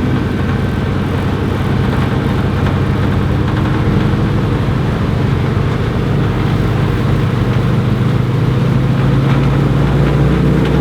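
Ford Trimotor's three radial piston engines running steadily, a loud, even engine drone whose pitch shifts slightly near the end.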